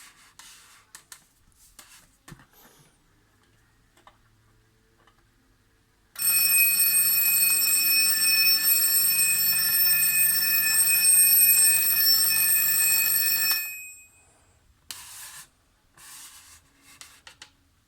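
Rhythm 7RA026 alarm clock's alarm ringing steadily for about seven seconds, then stopping, with faint handling clicks and rubbing before and after.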